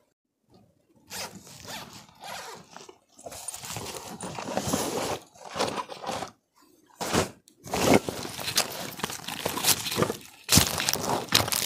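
Plastic tarp rustling and crinkling as it is pulled from a backpack and handled, with dry leaves crunching underfoot; the sounds start about a second in, come in irregular scrapes and sharp crackles, and are loudest near the end.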